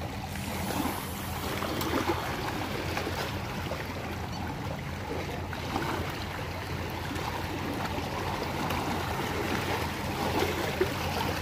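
Small sea waves lapping and splashing against shoreline rocks: a steady wash of water noise with small irregular splashes.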